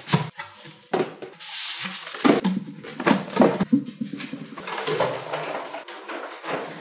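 Rolled paper rustling as it is handled and pulled from a drawing tube and opened out, with irregular rubbing and several short knocks from the tube and handling.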